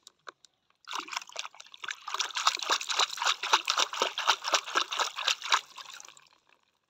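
A hand splashing and sloshing water in a shallow plastic tub while lifting a plastic toy animal out. A quick run of splashes starts about a second in and dies away near the end.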